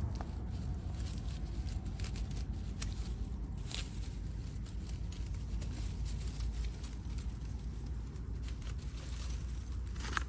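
Scattered light crackles and clicks of dry grass and litter being handled with a grabber, over a steady low rumble; a slightly sharper click comes about four seconds in and another near the end.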